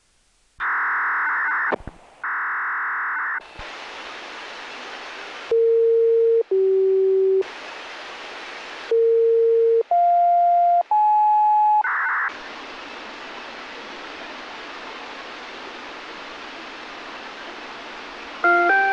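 Analog municipal disaster-prevention radio played through an outdoor horn loudspeaker: two buzzy bursts of radio noise, then five one-second beeps at single pitches, the last three stepping upward, followed by a long steady hiss from the open channel. The chime melody begins right at the end.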